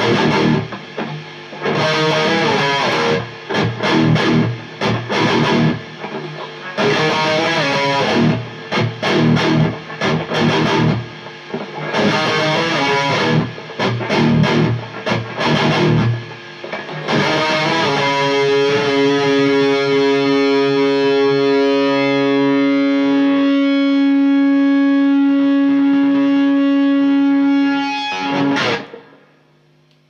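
Heavily distorted electric guitar riffing through a Marshall JVM410H head and 1960A cabinet with Vintage 30 speakers, an Explorer-style guitar with EMG pickups pushed by an MXR 10-band EQ: fast palm-muted thrash riffs with short stops. About halfway through a chord is let ring for around ten seconds, then muted suddenly near the end.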